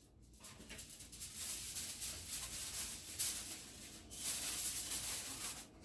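Aluminium foil crinkling and rustling on and off as a sheet of it is handled and pressed over a large stainless steel pot to wrap it.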